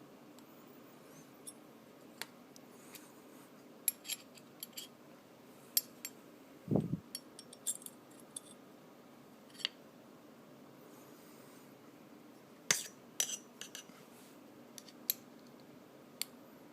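Small metal tools clicking and clinking against a pistol's steel slide as a screwdriver and pin punch are handled and positioned, irregular light taps with a duller knock about seven seconds in.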